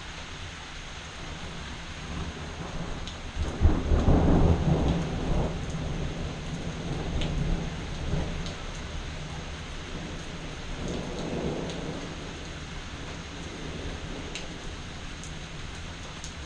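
Steady rain with thunder: a loud peal breaks suddenly about three and a half seconds in and rumbles on for several seconds, and a weaker roll of thunder follows a few seconds later.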